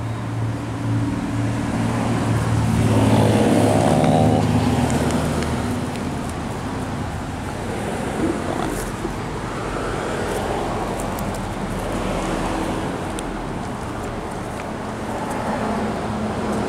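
Motor vehicle engine hum with road traffic noise, swelling about three seconds in as if a vehicle passes, then settling back to a steady hum.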